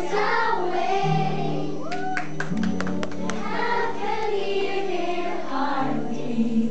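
A group of young girls singing together without clear words, over held accompaniment notes. A few sharp clicks come about two to three seconds in.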